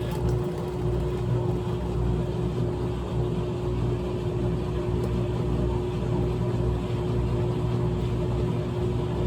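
GE top-load washing machine running mid-cycle with the lid open: a steady motor hum with a constant tone over low, uneven churning.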